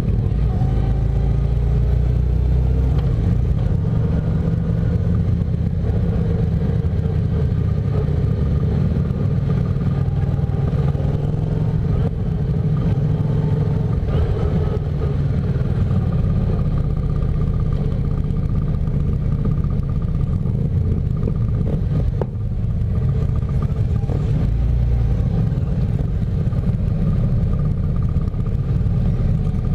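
Cruiser motorcycle engine running at low road speed, heard close from the bike itself, with the engines of other motorcycles riding alongside in a slow column. A steady low rumble with small swells and dips as the throttle opens and closes.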